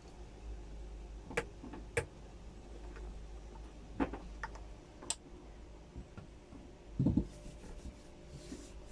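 A sleeping dachshund gives one short low snore about seven seconds in, followed by a faint breathy exhale, over a steady low room hum. A few sharp clicks sound earlier.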